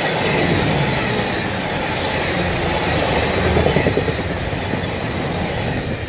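Diesel express train passing close at speed: its wheels rumble and clatter over the rails along with its engines. The noise is loudest as the middle cars go by and fades as the last car passes near the end.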